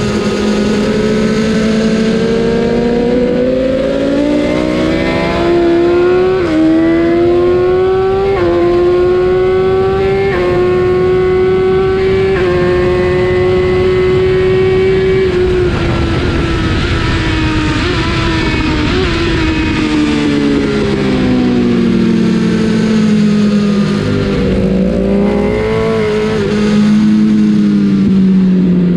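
BMW S1000 RR inline-four engine pulling hard through the gears, its pitch climbing and dropping a step at each of three quick upshifts, then held at high revs. The revs then fall away as the bike slows, with short rises in pitch on the downshifts near the end.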